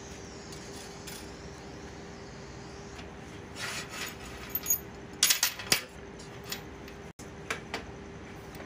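Steel chain links and horseshoe clinking and clanking against a steel welding table as they are handled, with a cluster of sharp metallic clinks about halfway through and a few lighter ones near the end, over a steady faint hum.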